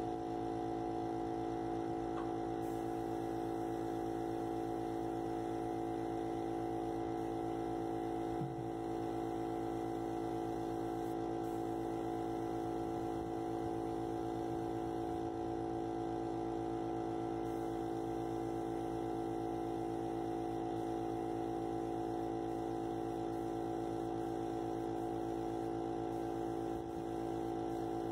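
Steady, unchanging machine hum from the spray-painting equipment feeding the paint gun.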